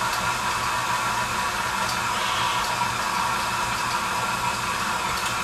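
KitchenAid Artisan stand mixer running steadily at a low speed, its beater blade turning through chocolate chip cookie dough.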